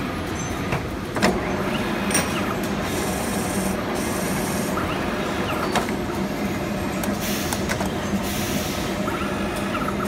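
Metal lathe running while threading the end of a steel tube: a steady machine drone with a low hum and stretches of higher hiss. A few sharp clicks come in the first six seconds.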